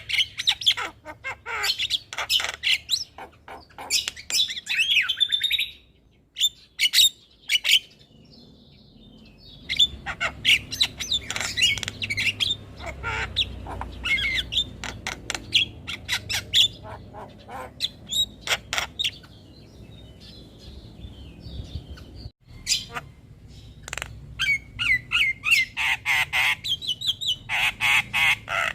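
Javan mynas chattering and calling in rapid runs of harsh, sharp notes and whistles, with a short lull about six seconds in before the calling resumes.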